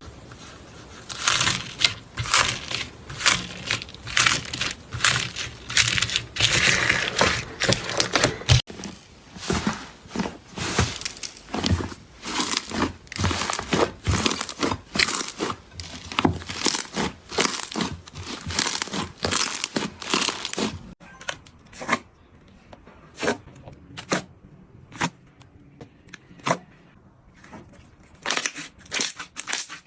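Slime being squeezed and stretched by hand, making wet crackling and popping sounds in uneven bursts, about one or two a second.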